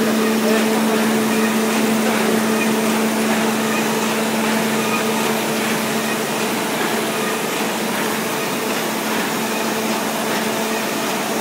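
Nanjiang WFD-430 fully automatic roll-fed paper bag machine running in production: a loud, steady mechanical hum with a constant low drone under a dense rattle of its moving parts.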